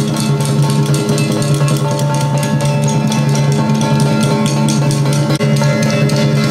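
Loud music: dense drumming over held instrument notes, playing without a break.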